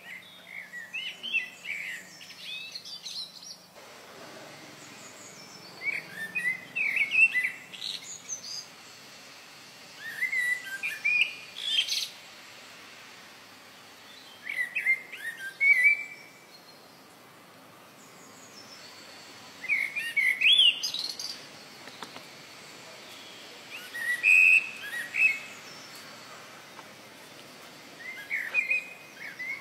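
A bird singing short phrases of quick whistled notes that slide up and down. The phrase repeats seven times, about every four to five seconds.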